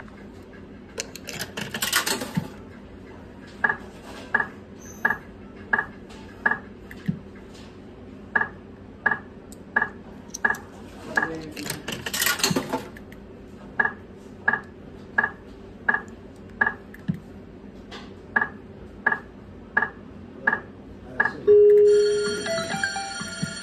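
Bar video slot machine's electronic game sounds: short beeps about two a second as the reels spin and stop, broken twice by a brief noisy burst. Near the end a louder jingle starts as a winning combination lands.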